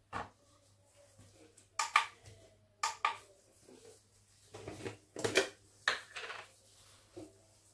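Glass containers and a plastic-lidded jar being handled on a counter: a scattered series of short clinks and knocks, with a few brief scraping sounds about five seconds in.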